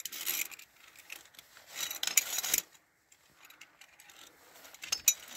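Via ferrata climbing gear, carabiners and lanyard on the steel safety cable, handled during a climb. Two short stretches of rubbing and scraping, then a few light metallic clicks near the end.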